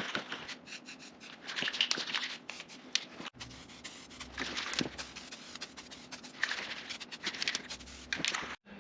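Rubbing and scraping strokes of painting work on a cast-iron planer casting, repeating every couple of seconds with small clicks in between.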